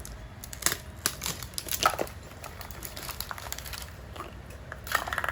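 Hands opening a toy surprise egg, its wrapping crinkling and tearing with irregular crackles and clicks.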